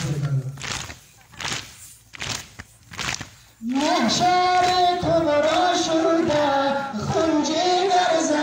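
Mourners beating their chests in Muharram matam, with a slap about every two thirds of a second. About three and a half seconds in, loud chanting of a mourning lament (noha) begins and carries on.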